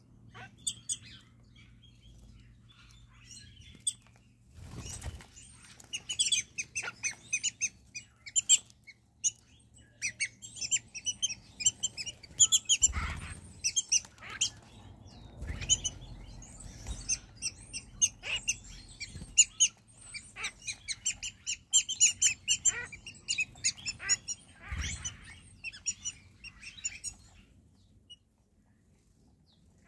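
A flock of wattled starlings calling: many rapid, overlapping short chirps and squeaks, sparse at first, thickening after a few seconds and dying away near the end. A few dull low thumps are heard among them.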